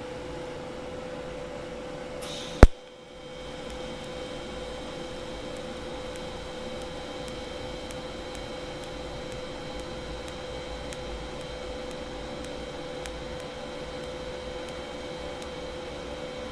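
TIG welder on stainless steel: a short high hiss ending in a single sharp crack about two and a half seconds in as the arc strikes, then a steady hum and hiss with a faint high whine while the arc burns.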